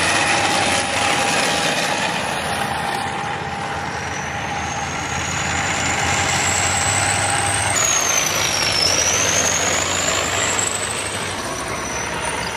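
Tracked armoured vehicles driving across beach sand, their engines and tracks making a steady heavy din. A thin high whine rises in pitch from about four seconds in, jumps and dips near eight seconds, then climbs again.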